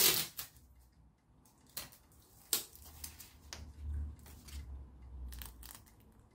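Paper and sticky tape being handled: scattered short crackles and taps, the loudest right at the start.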